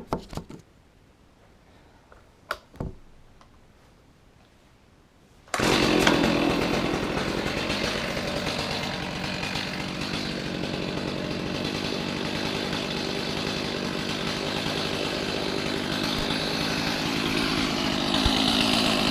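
A few faint clicks, then about five and a half seconds in a Stihl MS 310 two-stroke chainsaw engine comes in suddenly and runs steadily, a little louder near the end.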